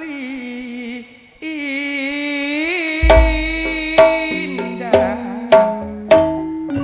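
Live Madurese gending music: a long wavering held note, then from about three seconds in a deep drum hit and sharp drum strikes roughly once a second under held melody notes.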